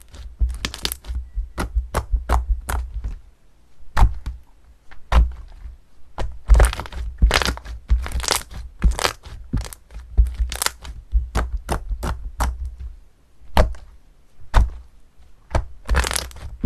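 Crunchy slime being squeezed and pressed, giving a run of sharp, irregular cracks and crackles. They come thick and fast at first, pause briefly, then return as louder single cracks and short clusters.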